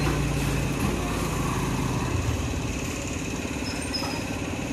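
Bajaj Pulsar NS200's single-cylinder engine idling steadily.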